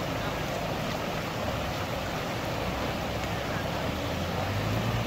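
Steady rush of floodwater pouring across a road where a river has overflowed its banks.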